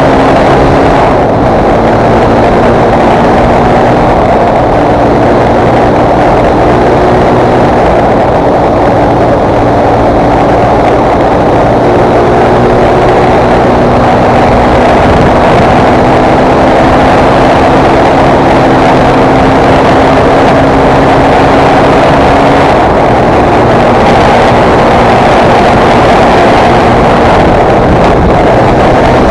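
Fantic Performance 125 motard's single-cylinder four-stroke engine running under way, its pitch stepping up and down every few seconds with throttle and gear changes.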